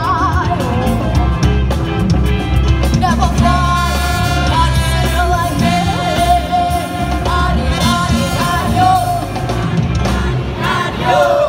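Live band playing upbeat music with a heavy beat: singers with hand microphones, electric guitars, keyboard, congas and drum kit. The voices hold one long note for a few seconds in the middle.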